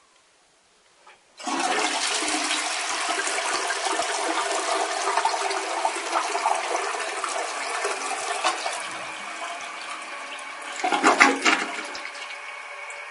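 A toilet flushing. About a second and a half in, water suddenly rushes into the bowl and then slowly eases off. Near the end there is a brief louder surge, followed by a steadier, quieter run of water.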